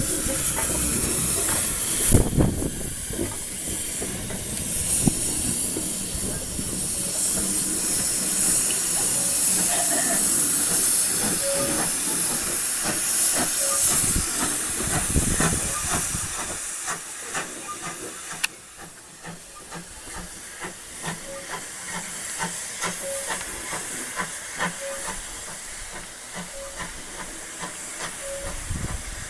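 Steam hissing from the '1500' Class 0-6-0 pannier tank locomotive No. 1501 as it moves off. The hiss is loud for the first half, then drops to a quieter hiss with scattered light clicks as the engine draws away.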